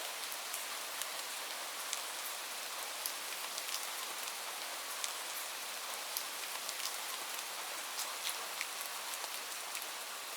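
Steady rain falling on a surface: an even hiss with many individual drops ticking through it.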